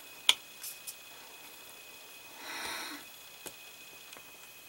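Light clicks and ticks of a small precision screwdriver turning a tiny screw into a plastic model part, the loudest a sharp click about a quarter second in. A short breathy rush of air, about half a second long, comes a little past the middle.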